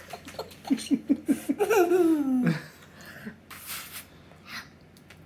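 A young child giggling: a quick run of about six short 'ha' bursts, then a longer laugh sliding down in pitch, followed by a couple of breaths.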